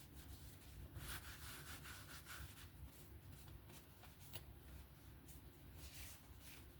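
Faint rubbing and handling of a folding knife in the hands, with one sharp click about four seconds in, over a low steady hum.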